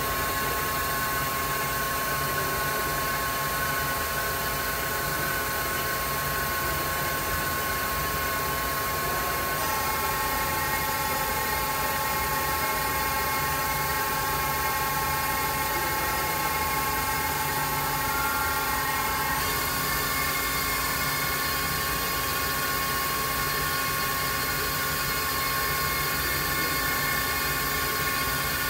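Makino KE55 CNC vertical mill spindle running with a steady high whine made of several tones. The pitch steps to a new speed about ten seconds in and again about twenty seconds in.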